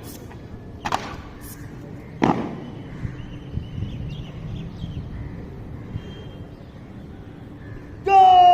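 A squad's rifles striking in unison during a rifle drill: two sharp cracks, about a second and a half apart, over a low background hum of the crowd. Near the end a loud, steady pitched tone begins and holds.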